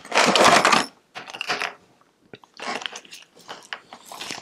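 Small plastic sequin jars with screw caps being handled and pulled out of a clear plastic bag: crinkling plastic and the jars clicking and knocking together. A longer rustle in the first second, then several short bursts of clatter.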